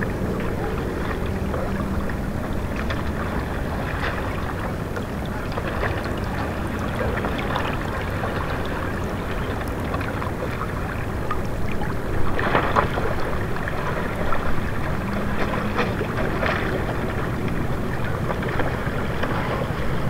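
River water flowing and lapping around rocks at the bank, a steady rush full of small gurgles, with a few louder splashes in the second half.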